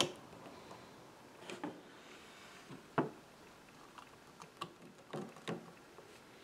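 Metal spring clamps clicking and knocking as they are set one after another onto a freshly glued wood patch: scattered sharp clicks, the sharpest at the very start and about three seconds in.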